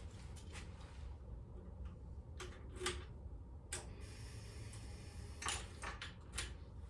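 A handful of short, separate clicks and knocks, about eight, spread irregularly over a low steady rumble. No engine is running.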